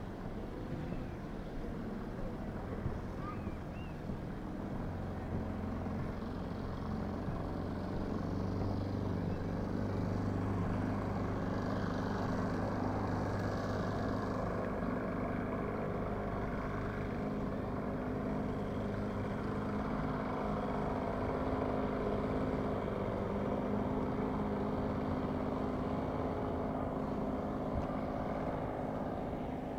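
An engine running steadily at a low, even pitch, getting a little louder about five seconds in.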